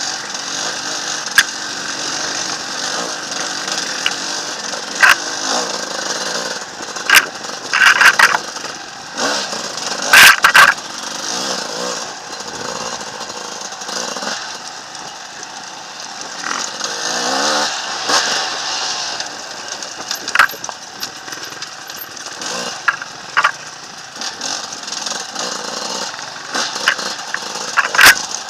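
Enduro dirt bike engine running and revving up and down over a rough trail, with repeated sharp knocks and clatters from rocks and branches hitting the bike; the loudest knocks come around ten seconds in.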